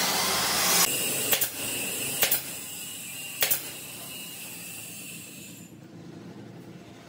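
Woodworking shop sounds: a loud hiss that stops just under a second in, then a few sharp knocks over the next three seconds, the last part quiet.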